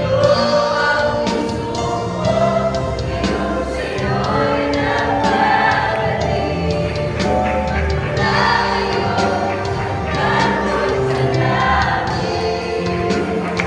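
A mixed youth choir of boys and girls singing a gospel song, with musical accompaniment.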